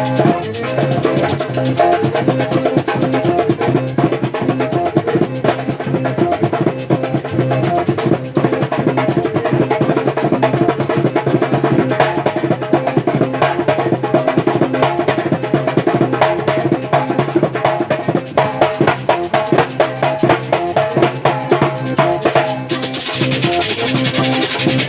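Vallenato ensemble playing a fast puya instrumentally: accordion over a quick drum beat. A high rasping percussion hiss joins near the end.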